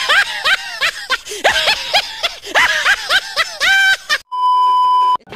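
High-pitched, repeated giggling laughter, dubbed over footage of a lion with its mouth open. Near the end the laughter gives way to a steady electronic beep lasting about a second.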